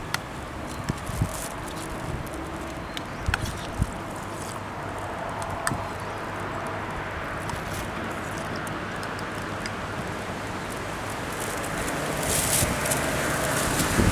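Steady outdoor background noise with a few scattered sharp clicks in the first half. Wind starts buffeting the microphone near the end.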